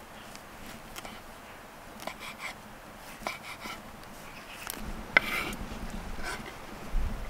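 Kitchen knife chopping sliced ham on a wooden cutting board: irregular knocks of the blade striking the wood, the sharpest about five seconds in.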